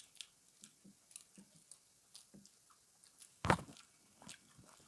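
People chewing and biting pizza close to the microphone: a run of small mouth clicks and smacks, with one much louder thump about three and a half seconds in.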